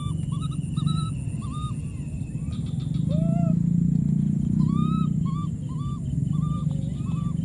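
A baby monkey calling with short, high, arched cries repeated in quick runs of four or five, a few of them lower and longer, over a steady low hum.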